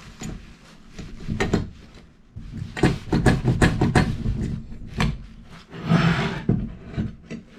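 A string of knocks and clatter from objects being handled and set down, with a short rubbing or scrubbing sound about six seconds in.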